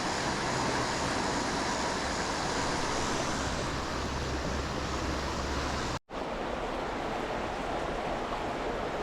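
Steady rushing of river water. The sound drops out for an instant about six seconds in.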